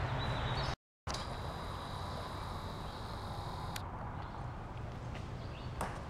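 Outdoor handling noise from a handheld camera being carried: low rumble and footsteps on a dirt and leaf path. A faint steady high whine runs for a few seconds in the middle, and a single sharp click comes near the end. The sound cuts out completely for a moment about a second in.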